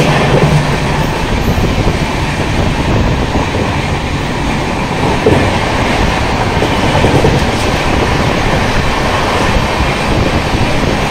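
Passenger train coach of the Dhauli Express running at speed: a steady loud rumble of wheels on rail with clickety-clack over the joints, and one sharper knock about five seconds in.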